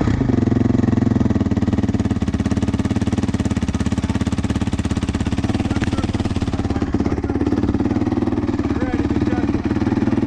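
Honda CRF motocross bike's single-cylinder four-stroke engine idling steadily with a fast, even putter.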